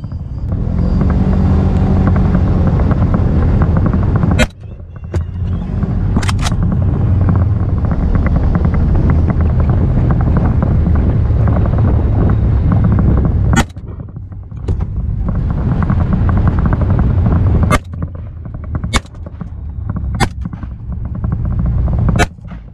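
A vehicle engine running hard while driving, a steady low rumble. The sound drops away suddenly four times, each time with a sharp click, then builds back up.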